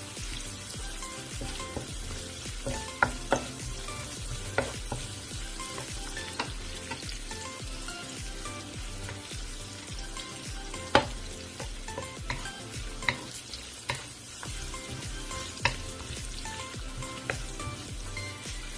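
Sliced onions and garlic sizzling in a little oil in a nonstick wok, stirred with a wooden spatula, with sharp taps of the spatula against the pan every few seconds.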